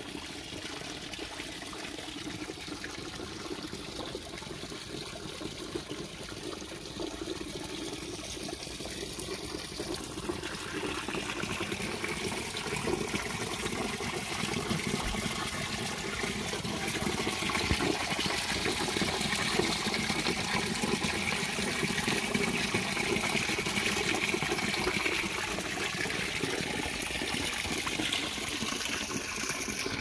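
Small waterfall: water trickling and splashing steadily, growing louder and brighter from about ten seconds in.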